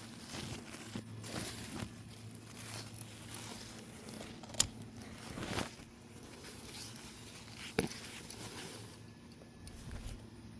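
Irregular rustling and crinkling, with two sharp clicks, one near the middle and one later.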